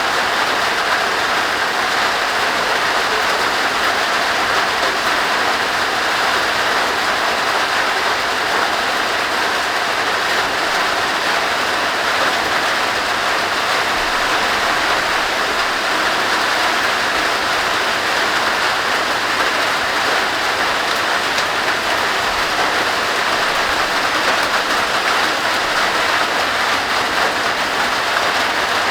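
Heavy rain pouring down steadily in a thunderstorm downpour, a dense, even hiss that does not let up.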